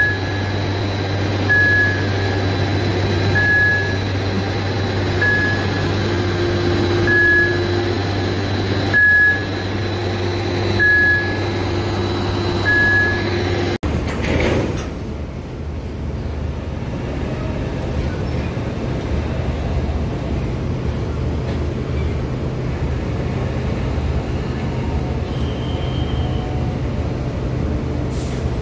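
Mobile harbour crane machinery humming, with a warning beeper sounding one short single-pitch beep about every two seconds. Halfway through, this gives way to a steady low engine rumble with a hiss over it.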